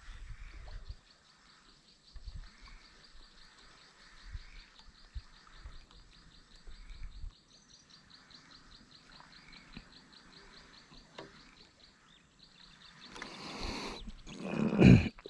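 Bird song: a rapid, high ticking trill that keeps on steadily, with softer calls every second or two. Near the end, rustling and a loud thump as the camera is handled against clothing.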